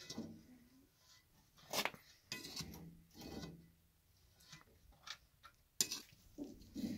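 Scattered handling noises: several separate knocks, clatters and scrapes at irregular intervals, the sharpest about six seconds in.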